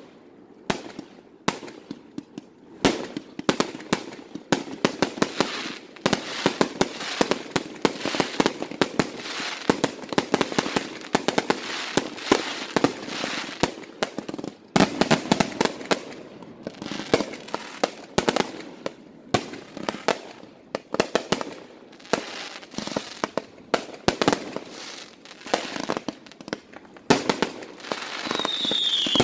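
Aerial fireworks firing in rapid succession: many sharp bangs and crackling bursts a second, in heavier volleys, with a short falling whistle near the end.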